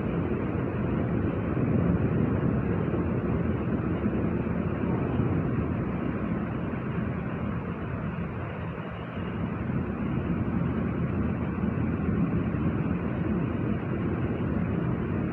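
Steady low rumbling noise with no distinct tones, dipping slightly in level about halfway through.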